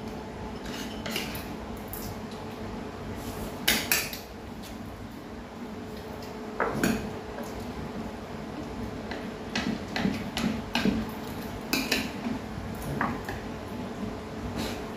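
Spoons and chopsticks clinking and scraping against china bowls and plates as people eat, in scattered clicks, the loudest a quick pair about four seconds in.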